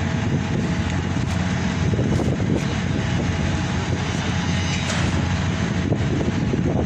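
Heavy truck diesel engine running steadily with a low drone, mixed with wind buffeting the microphone.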